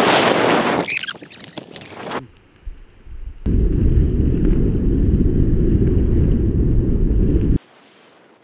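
Wind buffeting the camera microphone on a fast mountain-bike descent down a gravel forest trail. Loud rushing noise fades about a second in, returns about three and a half seconds in as a deep rumble, and cuts off suddenly near the end.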